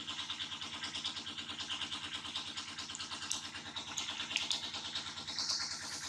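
A small engine idling steadily, with a fast even pulse, and a few faint clicks over it.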